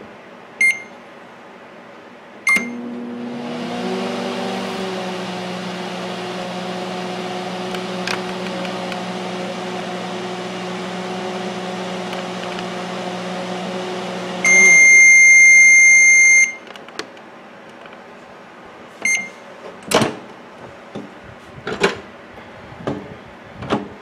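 Microwave oven with its outer cover off, running a 12-second heating test on its newly replaced high-voltage transformer. A short keypad beep and a click set it going, then it hums steadily for about twelve seconds, showing it is heating again. A long, loud beep marks the end of the cycle, followed by a few clicks and knocks.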